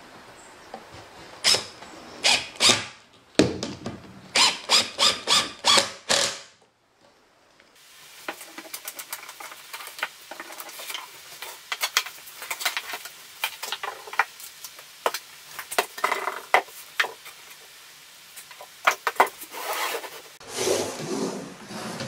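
Cordless drill-driver running in short bursts, driving screws into a wooden frame corner. After a short pause comes a long run of quick clicks and rattles as a ratcheting band clamp's strap is released and pulled off the frame.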